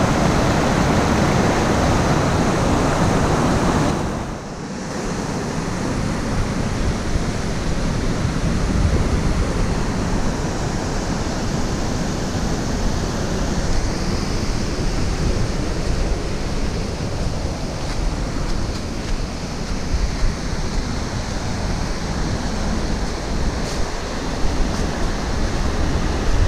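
Water rushing over the rocks of a small stream cascade, a loud steady rush for about four seconds, then after a brief dip a somewhat quieter, steady rush of the stream.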